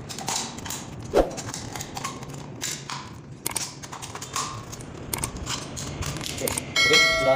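Scissors snipping and cutting through a thin metal drink can: a run of irregular sharp clicks and crunches. Near the end a louder, steady chiming tone comes in.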